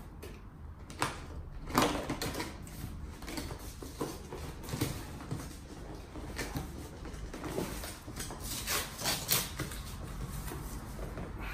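A long cardboard soundbar box being handled and pried at to get it open: scraping, rustling and irregular sharp knocks and clicks, loudest about two seconds in and again around nine seconds.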